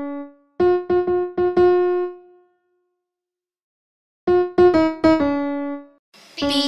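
Short keyboard jingle in a piano-like tone: a quick run of four notes that ring out, a pause of nearly two seconds, then another quick run of notes near the end.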